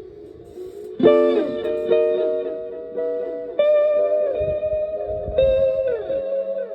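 Stratocaster electric guitar chords through a Fender Twin Reverb–style amp and a PT2399-based Echorec-style echo pedal. Chords are struck about a second in, near the middle and again near the end. Each is followed by echo repeats whose pitch slides downward.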